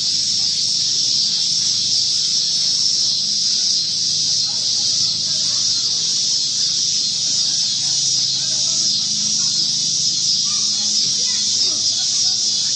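A steady, unbroken high-pitched hiss, even in level throughout.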